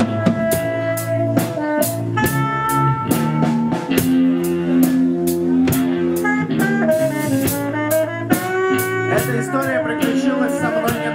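Live band playing an instrumental passage: saxophone holding long notes over electric guitar and a drum kit keeping a steady cymbal beat.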